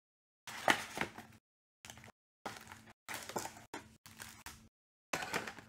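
Cardboard trading-card hobby box being opened and its foil packs slid out by hand: short bursts of scraping and rustling, with a sharp knock less than a second in.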